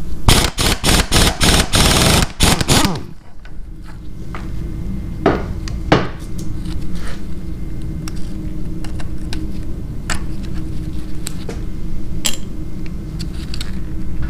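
Rapid, loud metallic impacts of a tool working on engine parts for about three seconds, then a steady low hum with occasional sharp clicks of tools and parts on metal.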